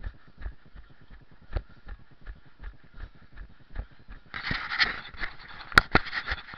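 A runner's own footfalls on a grass track, steady thuds about two and a half to three a second, carried through the action camera worn by the runner. About four seconds in a scratchy rustling noise joins, with a sharp knock near the end.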